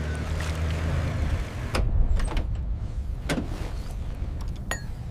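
A steady low motor hum that stops about a second in, followed by a hiss with a few sharp knocks.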